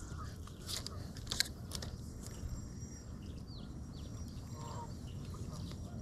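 Outdoor lakeside ambience: a steady low rumble with a few faint bird chirps, and a couple of sharp clicks in the first second and a half.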